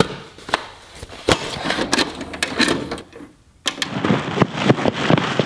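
Plastic clicks and clunks of a VHS cassette being taken from a stack and handled. After a brief drop to quiet about three seconds in, a steady crackling hiss of tape static with scattered clicks.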